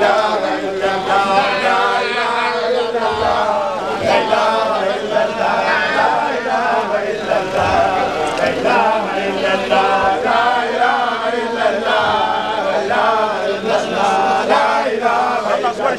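A group of voices chanting together in a devotional chant, continuous with no pauses.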